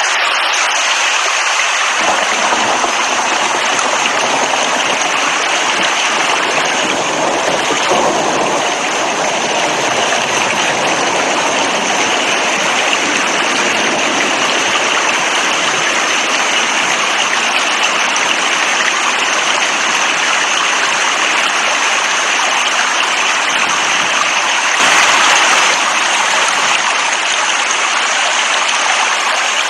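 Heavy rain falling steadily, a dense even rush of water. About two seconds in it grows fuller and deeper, and it swells briefly louder near the end.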